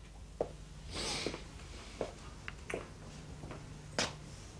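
Quiet room tone with a low steady hum, a few soft scattered knocks, and one short hiss about a second in.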